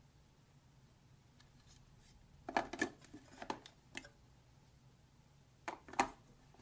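Small hard clicks and clacks of toy pieces being handled or knocking together: a quick cluster about two and a half seconds in, then two sharper ones near the end.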